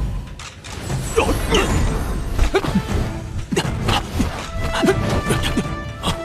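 Dramatic film soundtrack music mixed with a rapid string of short sound-effect hits and whooshes for the characters' leaping action.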